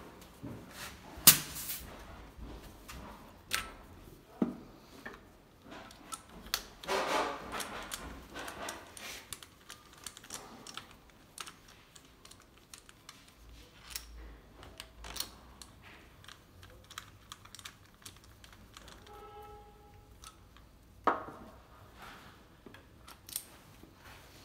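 Scattered clicks, light metallic knocks and scrapes of hand work on a 1.9 TDI diesel engine as the compression tester's adapter is taken out of one cylinder and fitted to the next. The clicks are irregular, with a few louder knocks and a brief squeak near the end.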